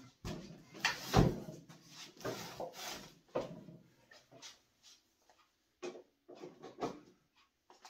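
Handling noises from the Shopsmith headstock and its power cord on the workbench: scattered knocks, bumps and rubbing, the loudest a sharp knock about a second in.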